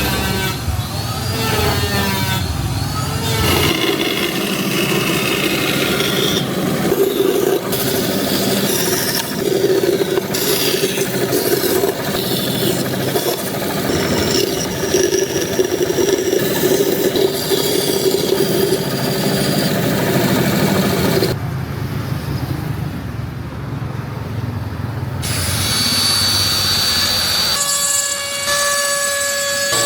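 Power tools cutting and grinding wood, the sound changing abruptly every few seconds. A steady motor hum runs through the middle, and held, steady tones come in near the end.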